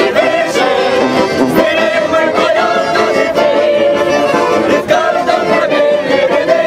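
A group of men and women singing a song together to the accompaniment of several accordions.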